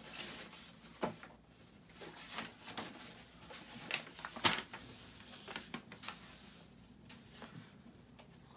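Sheets of folded paper being handled and turned over, rustling and crackling irregularly, with the sharpest crackle about four and a half seconds in.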